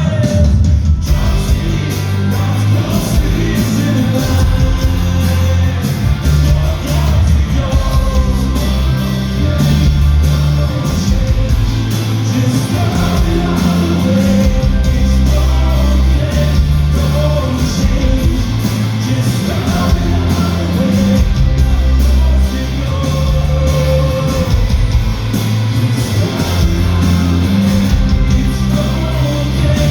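Rock band playing live and loud, with heavy bass and steady drum hits, in a stretch without clear lyrics, echoing in a large hall.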